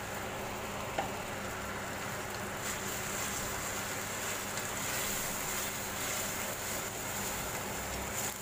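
Chicken and potato pieces sizzling and simmering in a shallow pan of soy-sauce gravy while a wooden spatula stirs them: a steady hiss that brightens after about three seconds, with one sharp knock about a second in.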